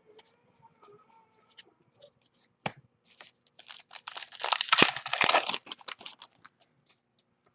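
A 2017 Diamond Kings baseball card pack wrapper being torn open and crinkled: a sharp click, then about three seconds of loud tearing and crinkling.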